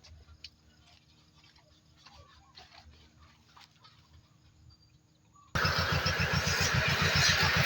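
A faint low hum and a few light clicks, then, about five and a half seconds in, a motorcycle engine cuts in abruptly and keeps running loudly with a steady rapid beat.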